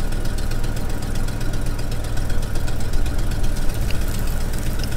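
Pickup truck engine idling in drive as the truck creeps slowly forward, a steady low running drone.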